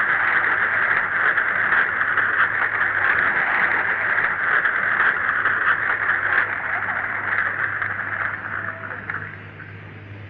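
Concert audience applauding and cheering on a muffled, low-fidelity live tape, with a steady low mains hum underneath; the applause dies away near the end.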